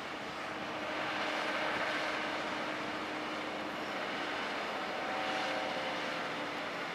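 Steady distant engine noise, with faint whining tones over a continuous rumble that swells slightly twice.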